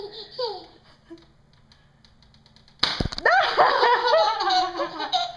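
A baby cooing briefly, then a sharp smack about three seconds in, after which the baby breaks into loud, squealing laughter.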